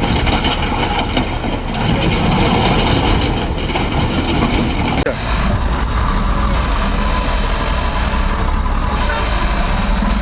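Heavy machine's engine running steadily, the sound changing abruptly about halfway through.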